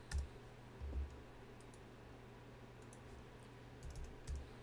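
Quiet, scattered computer keyboard key presses and clicks, a few at a time, as numbers are typed into a field, with a few soft low thumps among them.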